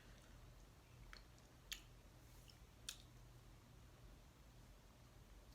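Near silence: room tone with a low hum and three faint short clicks.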